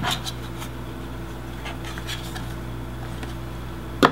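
Handling noise from the small metal video receiver: a sharp click at the start, a few faint taps, and a sharper knock about four seconds in, over a steady low electrical hum.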